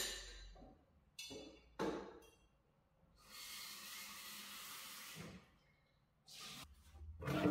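Kitchen tap running into the sink for about two seconds in the middle, between a few knocks and clinks of items being handled at the sink.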